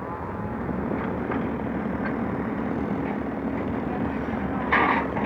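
Excavator diesel engine running steadily, with a short louder burst near the end.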